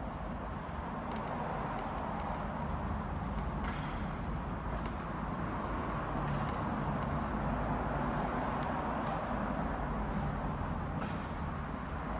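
Road traffic passing: a steady noise of tyres and engines over a low rumble that builds a little toward the middle.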